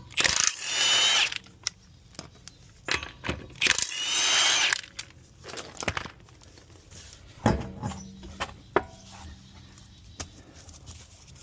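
A power tool spinning lug nuts off a truck wheel in two whining bursts of about a second each, followed by scattered metallic clicks and knocks as the nuts and the wheel are handled.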